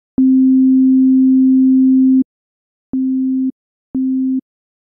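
Pure sine-wave tones from a software synth: a steady tone lasting about two seconds, then two short, quieter tones of the same pitch, each starting with a faint click, and the loud tone starting again at the end. The loud tone is two identical sine waves played together in phase, adding up to twice the amplitude.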